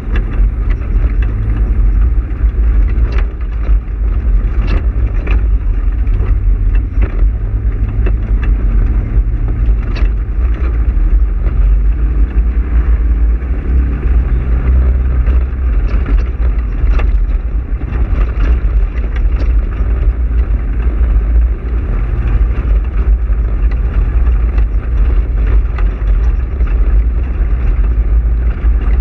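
Polaris RZR side-by-side driving on a rough dirt road: the engine runs steadily under a heavy low rumble, with frequent short knocks and rattles as the machine jolts over rocks and ruts.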